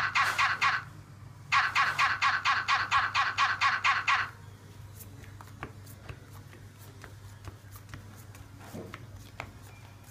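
A loud, rapid, pulsing trill of about six pulses a second sounds in two bursts and stops about four seconds in. After it, faint light clicks of playing cards being handled and dealt onto a cloth-covered table.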